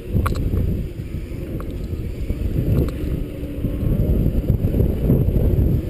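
Wind rumbling and buffeting on the microphone while riding along on a Segway, with a few faint clicks.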